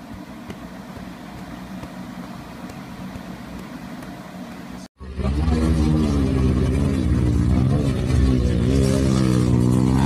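Dirt bike engine revving hard, its pitch wavering up and down, starting suddenly about five seconds in after a stretch of quiet low background noise.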